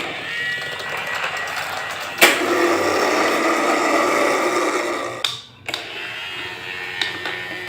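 Small DC electric motor whirring steadily, likely spinning a toy propeller. It gets louder after a click about two seconds in and drops out briefly about five and a half seconds in.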